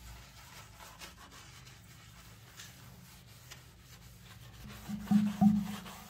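Green scouring pad scrubbing a wet ceramic bathroom sink dusted with cleaning powder: a soft, uneven scratchy rubbing. About five seconds in come two short, much louder squeaks.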